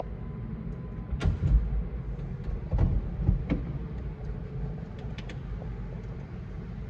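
A BMW convertible's power roof mechanism working over a steady low rumble from the car, with a few sharp clicks and clunks as the roof moves and latches.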